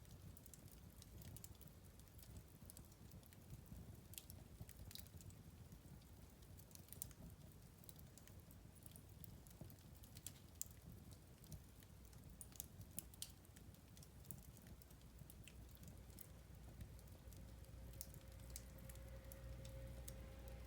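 Wood fire in a fireplace crackling softly: scattered sharp pops and ticks, a few a second, over a faint low rumble of the burning fire.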